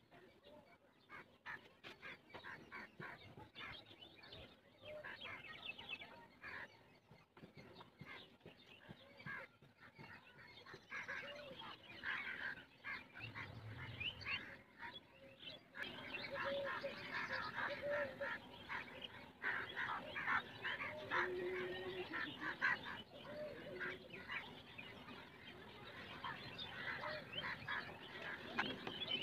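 Birds, likely domestic fowl, calling in a busy run of short calls, louder and denser from about halfway through.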